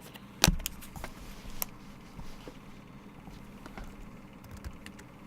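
Trading cards and packaging being handled: a sharp tap about half a second in, a run of lighter clicks and ticks over the next second, then a few scattered ones.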